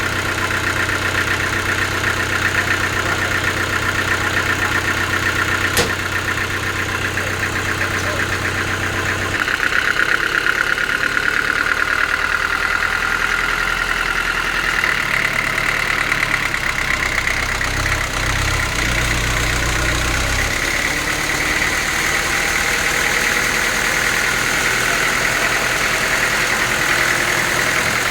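Sawmill machinery running steadily: an engine-like drone under a steady high whine. There is a single sharp click about six seconds in, and the whine and hum shift in pitch about nine seconds in.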